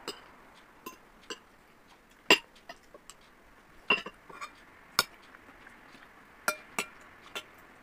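Metal spoon and fork clinking against a glass bowl while eating, about a dozen sharp, irregularly spaced clinks, the loudest a little over two seconds in and again at about five seconds.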